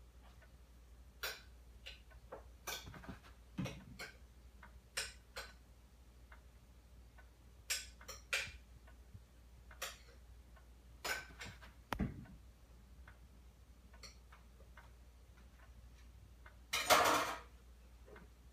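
Scattered light clicks and taps at an irregular pace, with a louder noisy rustle lasting about half a second near the end.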